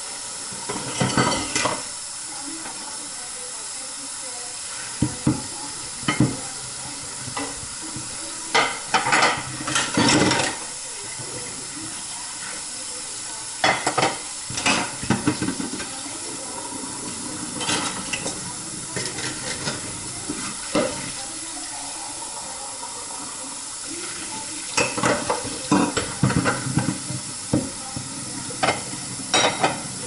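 Kitchen faucet running steadily into a sink while dishes are washed by hand, with scattered clinks and knocks of plates, pans, glasses and mugs being handled, in small clusters.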